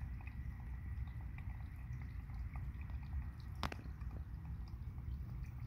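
Faint pond-side sound: a low steady rumble with scattered small drips and clicks of water, one sharper click a little past halfway.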